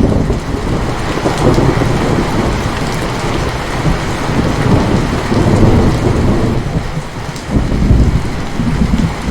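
Steady rain with a long rolling thunder rumble that comes in suddenly, swells several times and fades near the end.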